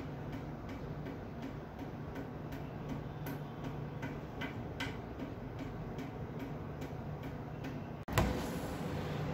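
Even, rapid ticking, several ticks a second, over a steady low hum. About eight seconds in comes a single sharp knock.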